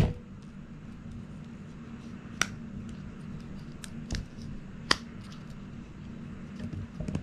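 Handling clicks from a fitness band's rubber strap and plastic tracker pod as they are worked apart by hand: one sharp click at the start, then about three lighter clicks spread over the next few seconds, over a low steady hum.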